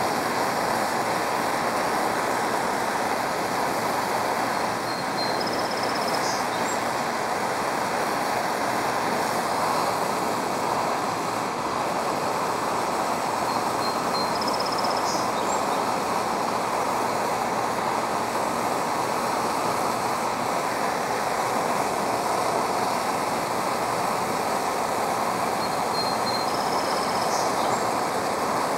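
Propane torch flame burning with a steady hissing roar while it heats an aluminum boat hull and melts an aluminum brazing rod into a pinhole leak.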